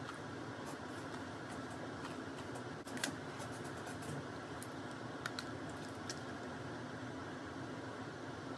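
Steady background hiss of room noise, with a few faint short clicks and taps.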